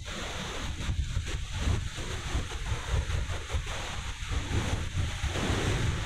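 Ocean surf washing onto the beach in a steady hiss, with wind buffeting the microphone in a low, fluttering rumble.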